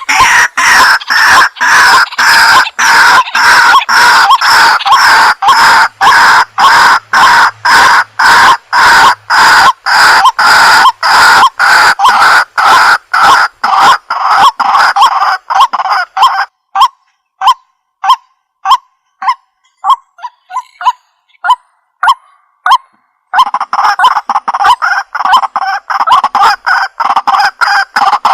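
White-breasted waterhen calling: a loud, rapid series of short repeated call notes, between two and three a second. About two-thirds of the way through, the series thins to sparse single notes, then picks up to the full run again.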